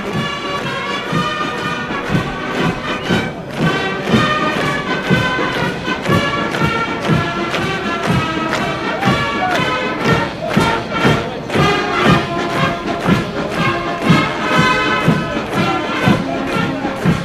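Military brass band playing a march, with a steady thudding beat about twice a second.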